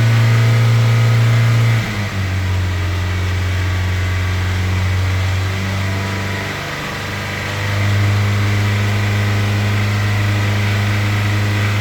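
Hyundai Sonata engine held at a fast steady rev, around 3000 rpm, dipping briefly about two seconds in and sagging again around the middle before picking back up. It is being held high for several minutes as a no-liquid fix for a ticking noise at idle.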